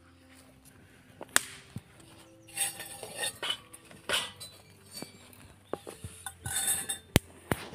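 Metal forks and spoons clinking and rattling against a stainless steel bowl in irregular bursts, with two sharp clinks close together near the end.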